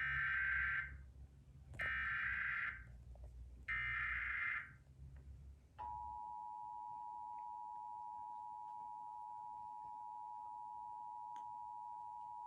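Emergency Alert System SAME header: three harsh buzzing data bursts of about a second each. About six seconds in, the steady two-tone EAS attention signal starts and holds, announcing a required monthly test.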